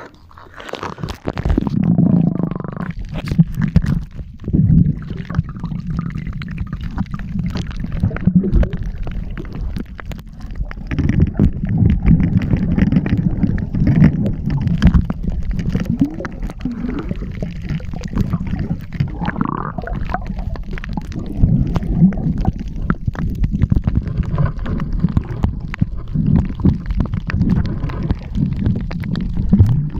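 Muffled low rumble and gurgling of water moving around a camera held under water, broken by many short knocks and clicks.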